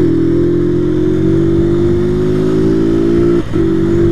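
Honda CG 125 Fan's single-cylinder pushrod engine running under way, its note rising slowly. It dips briefly about three and a half seconds in, then picks up again.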